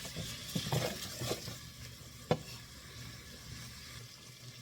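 Ground sausage sizzling as it browns in a frying pan, with a utensil scraping and clicking against the pan as the meat is broken up, and one sharper knock about two seconds in.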